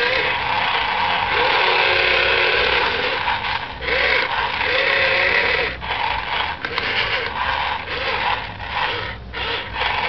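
Radio-controlled model excavator's small electric motors and gears whirring as the boom, arm and bucket dig into sand, the whine rising and falling in pitch with each movement. The noise drops out briefly several times in the second half.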